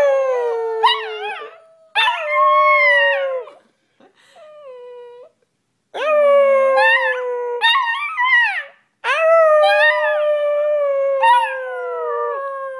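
A small black-and-tan dog howling: about five long howls with short breaks between them, each sliding slowly down in pitch with warbling breaks in the voice. The third is much fainter than the rest.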